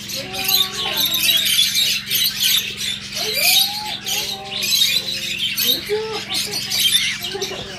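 A flock of budgerigars chattering in an aviary: a dense, continuous mix of high chirps and warbles, over a steady low hum.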